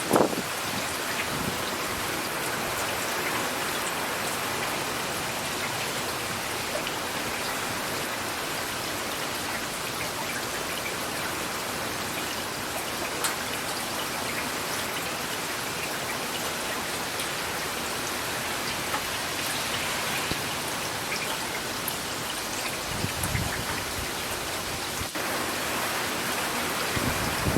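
Steady rain falling, an even hiss with scattered drop ticks and a couple of brief low thumps.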